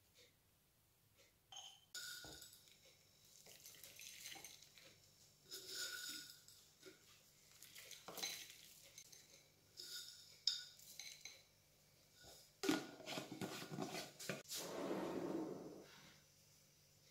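A wooden spoon scraping and clinking against a glass bowl as jam is spooned onto chopped apple, in short scattered strokes. Near the end, granola is scattered by hand into the bowl with a rustle that lasts a few seconds.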